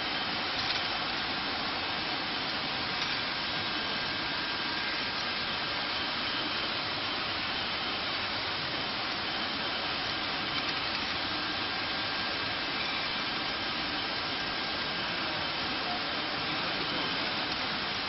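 Automatic rotary bottle-labeling machine running: a steady mechanical whir and hiss with a couple of faint high tones and occasional light ticks.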